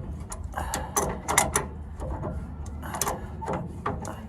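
Adjustable crescent wrench working a castle nut on the steering linkage, a run of irregular metallic clicks and clinks as the wrench is tightened and repositioned on the nut.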